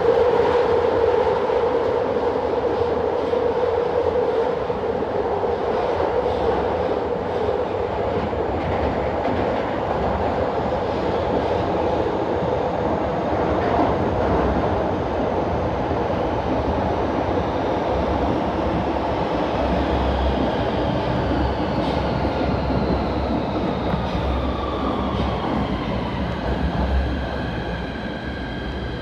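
PATH PA-5 subway car running through a tunnel, heard from inside the car: steady wheel and track rumble. Over the last several seconds a whine falls in pitch as the train slows.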